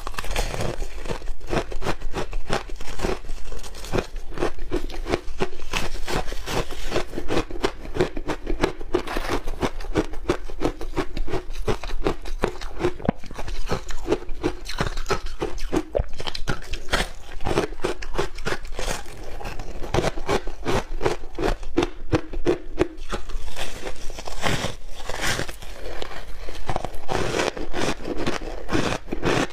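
Close-miked biting and crunching of packed shaved ice, chewed mouthful after mouthful in a dense, unbroken run of sharp crunches.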